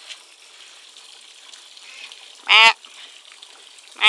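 A runner duck gives one loud quack about two and a half seconds in, and another quack starts right at the end.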